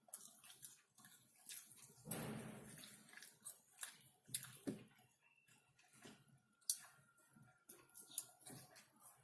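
Close-miked chewing and wet mouth clicks of someone eating chicken: quiet, irregular soft smacks, with a longer, louder sound about two seconds in.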